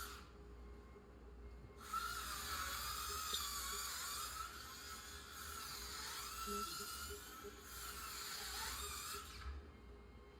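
High-pitched whine of a small electric power tool's motor, starting about two seconds in, its pitch sagging and recovering as it takes load, then cutting off near the end.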